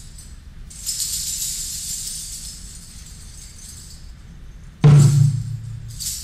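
Live hand percussion: a jingling rattle shaken for about two seconds, fading out, then one loud deep drum stroke about five seconds in that rings on for about a second, and a short jingle near the end.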